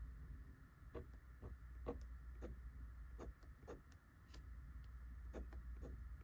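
Extra-fine fountain pen nib writing on paper under light pressure: a run of short, faint scratching strokes, roughly two a second.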